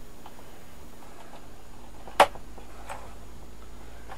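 One sharp click about two seconds in, with a few fainter small clicks, as a screwdriver pries at the clipped-on bottom panel of an MSI GF63 laptop.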